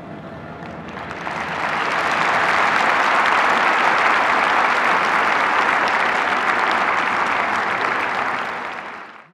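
Large arena audience applauding, swelling in about a second in and holding steady, then cut off abruptly at the end.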